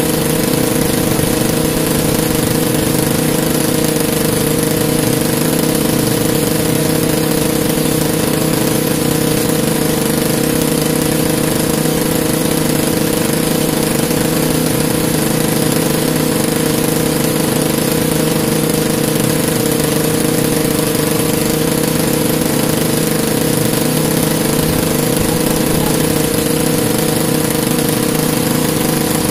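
Generator engine running steadily, powering the boat's fishing light, a constant loud drone with no change in speed.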